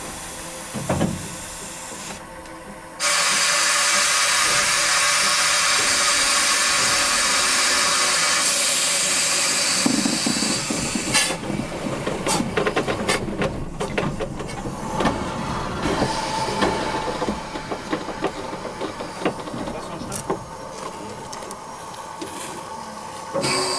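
Steam locomotive venting steam: a loud hiss starts suddenly about three seconds in and holds steady for several seconds, then turns rougher and uneven, with scattered clanks, and slowly dies down.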